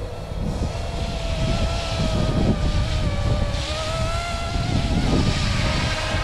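Battery-electric YX Black Hawk UH-60 scale RC helicopter in flight: a steady motor and rotor whine that wavers slightly in pitch, over a low rumbling noise.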